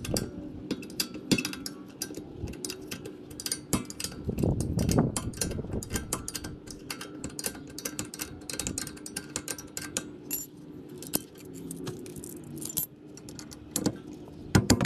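Repeated small metallic clicks and clinks of a wrench and locking pliers working a rear brake caliper bolt loose, the pliers gripping the caliper slide pin that spins with the bolt.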